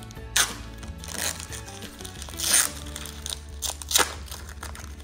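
Foil wrapper of a Pokémon Sword and Shield Vivid Voltage booster pack being torn open and crinkled, in a few short bursts about a second apart, the longest about two and a half seconds in. Background music with steady low notes plays under it.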